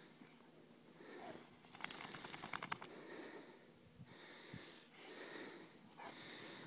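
Heavy breathing in repeated gusts about a second apart. About two seconds in comes a burst of rapid clicking and rattling, the loudest sound.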